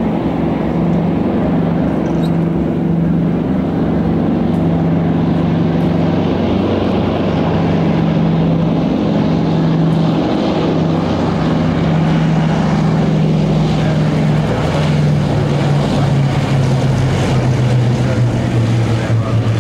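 Four radial piston engines of a Lockheed Constellation running in a steady drone as the airliner comes in low with its gear down. The pitch drops over the last few seconds as it passes by.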